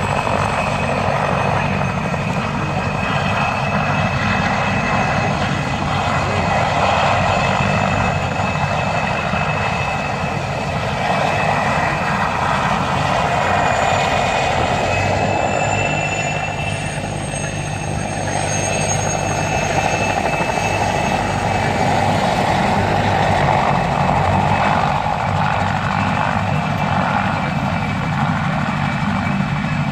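Helicopter flying low and manoeuvring close by: a steady, loud drone of rotor and engine with a high whine on top, easing slightly about halfway through before building again.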